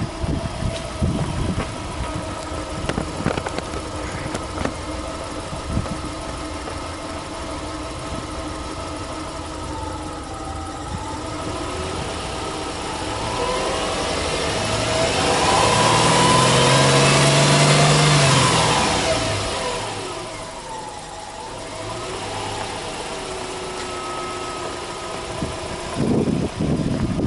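Subaru Impreza 1.5i-S's 1.5-litre flat-four boxer engine idling steadily, with the hood open. About halfway through it is free-revved, held high for a couple of seconds, then falls back to idle. A few knocks come near the start and the end.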